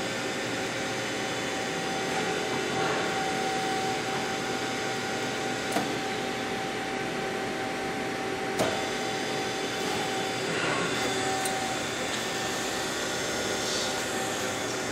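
Electric gear motor of a butterfly-valve cycle-test rig running steadily, a continuous hum with a whine, as it drives the valve disc through repeated open-close cycles. Two sharp clicks stand out, about three seconds apart midway through.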